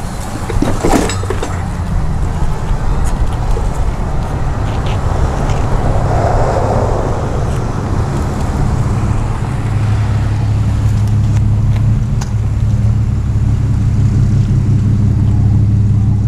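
Magic Mobility Frontier V6 power chair driving, its electric drive motors giving a steady low hum that grows stronger about ten seconds in, with a few sharp clicks.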